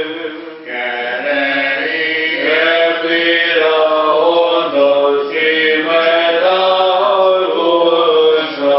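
Byzantine chant in a Greek Orthodox church: voices singing a slow melodic line of long held notes that step between pitches, with short breaks for breath about half a second in and near the end.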